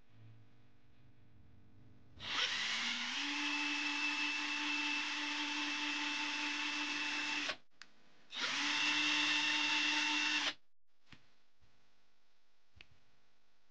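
Cordless drill with a twist bit boring into a wax candle: the motor spins up with a rising whine and runs steadily for about five seconds, stops briefly, then runs again for about two seconds. A few faint clicks follow.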